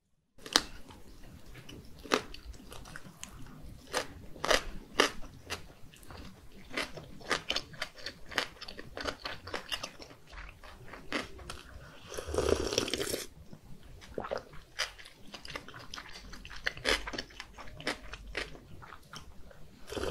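Close-miked eating sounds: chewing with many sharp, wet mouth clicks, and a slurping sip of broth from a cup about twelve seconds in.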